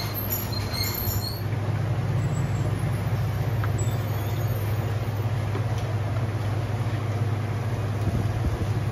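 Steady low mechanical hum with background noise, plus a few faint high pings in the first second and a half.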